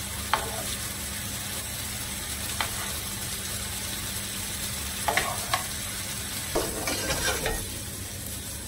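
Chicken pieces sizzling in a frying pan while tongs lift them out, with a few sharp clicks of the tongs, several of them close together in the second half.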